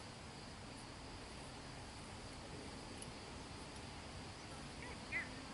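Faint, steady chorus of insects, a constant high-pitched trill over open-air background hiss, with a brief high chirp near the end.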